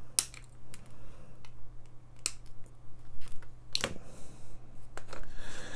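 Flush side cutters snipping the excess leads off freshly soldered components on a circuit board: a series of sharp snips, the loudest near the start, about two seconds in and just before four seconds.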